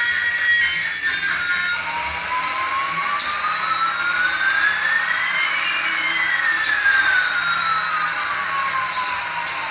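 Jet-engine-like rushing hiss with a whine that rises slowly in pitch for about four seconds, then falls back down.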